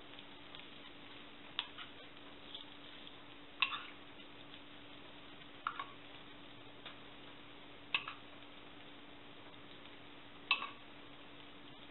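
Metal measuring spoon clinking lightly against a stainless steel bowl while scooping grated cheese, a short clink every two seconds or so, over a faint steady hum.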